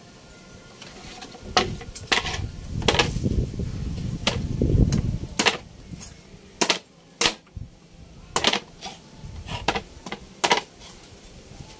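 Meat cleaver chopping into a green young coconut's husk on a wooden board: about ten sharp chops at an irregular pace.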